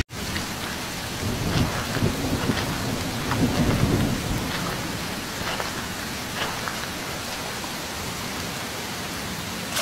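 Rain falling as a steady hiss with faint crackles of drops, and a low rumble like distant thunder swelling from about one and a half to four and a half seconds in.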